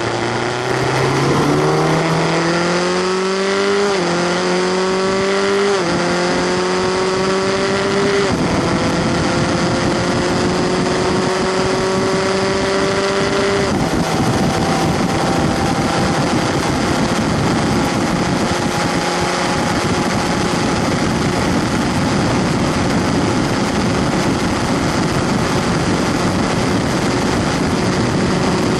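In-car sound of a Skip Barber 2.0-litre formula race car engine. The revs dip at the start, then climb hard through the gears, with upshifts about 4, 6, 8 and 14 seconds in. After that it holds steady at high revs on the straight, over a constant rushing noise.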